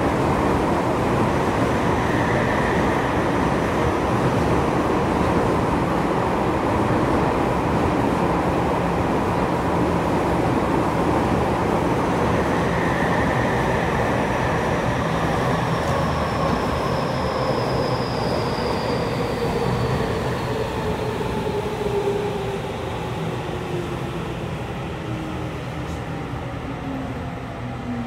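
Interior running noise of a Tokyu 5080 series subway train, steady at first. In the second half the motor whine slides down in pitch and the noise eases off as the train slows toward the station.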